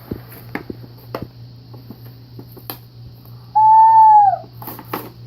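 Light clicks and taps of toy blister packaging being handled and opened. About three and a half seconds in comes one loud, clear hooted note lasting under a second, dipping in pitch at its end.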